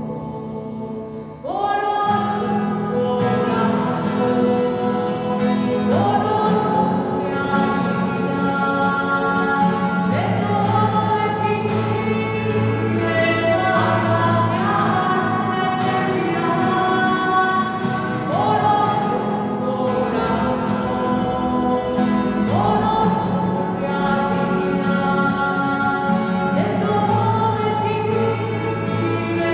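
A devotional hymn sung by a choir over held instrumental chords, swelling about a second and a half in.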